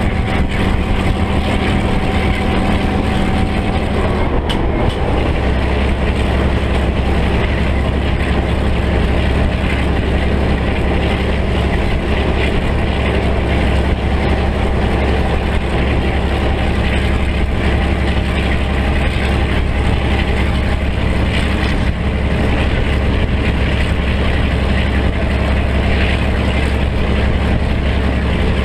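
EMD 567 diesel engine of an NZR Da class (EMD G12) locomotive running under power, heard close from the locomotive's front end along with the running noise of the moving train. About four seconds in, the engine's note changes, then holds steady.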